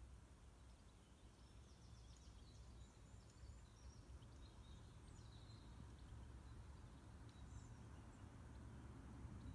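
Near silence: faint outdoor ambience with a steady low rumble, and faint high bird chirps for a few seconds in the first half and once more later on.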